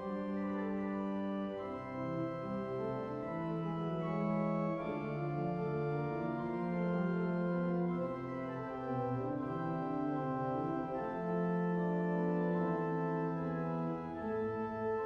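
Pipe organ of The Queen's College chapel (a Frobenius) playing slow held chords that change every second or two.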